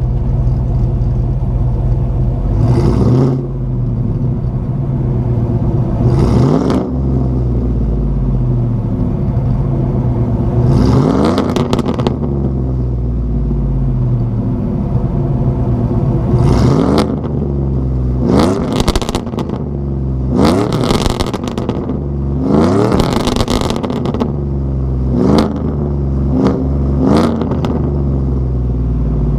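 GMC Sierra pickup's engine breathing through a Bullet exhaust with Kooks headers and a catless Y-pipe, idling and blipped up in revs about nine times. Crackles and pops come from the exhaust as the revs fall, mostly in the second half, produced by a rich custom tune.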